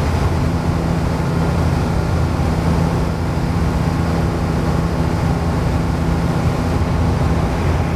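Ikarus C42 ultralight aircraft's engine and propeller running steadily in cruising flight, heard from inside the cockpit as a constant drone.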